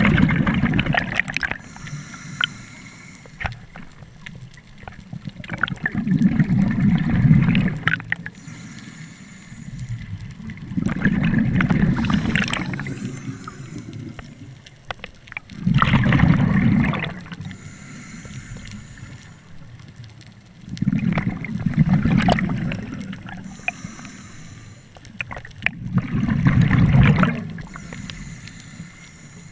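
Scuba diver breathing through a regulator underwater: a loud rush of exhaled bubbles about every five seconds, six times, with a faint hiss of inhalation between them.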